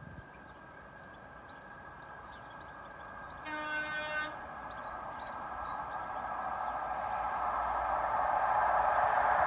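InterCity 125 HST (Class 43 power car) approaching: one short horn blast about three and a half seconds in, a warning for the foot crossing, then the train's running noise growing steadily louder as it nears.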